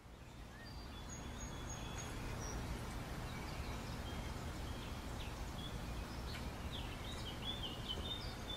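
Outdoor ambience fading in over the first couple of seconds: a steady low background rumble with small birds chirping now and then, more often near the end.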